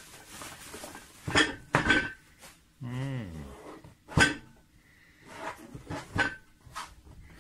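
Unpacking noises: bubble wrap rustling and a cardboard eyepiece box handled and set down on a tabletop, with several sharp knocks, the loudest about two and four seconds in. A brief low sound falling in pitch comes about three seconds in.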